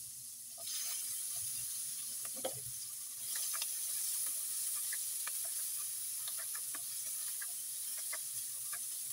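Onions and garlic sizzling in oil in a nonstick wok as chopped tomatoes are added and stirred with a spatula. The sizzle grows louder about half a second in and again after about three seconds, with scattered crackles and light spatula scrapes, and a soft thump a little past two seconds in.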